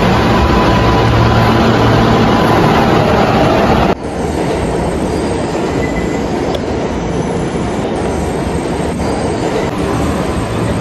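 Subway train running on rails: a steady rumble with a hum, dropping suddenly to a quieter rolling rumble about four seconds in.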